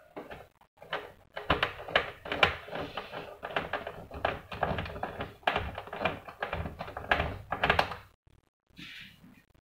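Plastic parts of a GP-1125T label printer's print mechanism clicking and rattling as they are handled and fitted by hand: a dense, irregular run of clicks that stops about eight seconds in, followed by a brief fainter scrape.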